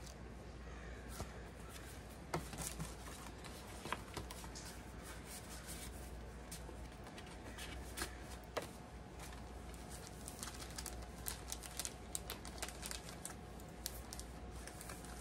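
Light rustling of a paper pop-up greeting card being handled and unfolded, with scattered small clicks and taps that come more often near the end.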